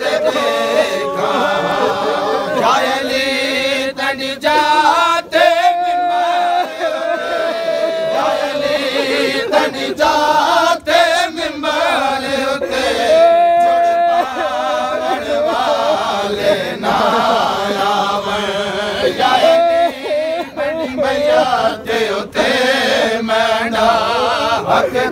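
A group of men chanting a noha, a Shia mourning lament, in unison with no instruments, holding some notes for a few seconds.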